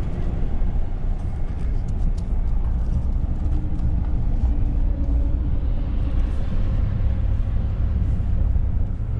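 Steady low rumble of a pickup truck's engine and road noise, heard inside the cab while driving.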